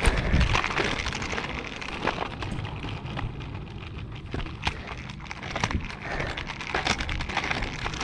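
Irregular crackling and light ticks over a low rumble: the rubbing and handling noise of a body-mounted action camera as the wearer walks along a concrete street.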